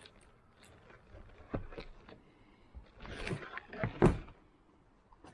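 A large cabbage head handled, its leaves rustling, then set down on a wooden table with a thump about four seconds in; a softer knock comes about a second and a half in.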